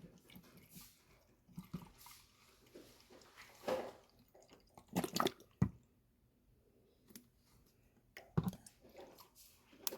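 Scattered small clicks, knocks and faint liquid squishes as rinse aid is poured into a dishwasher's rinse-aid dispenser, with short quiet gaps between.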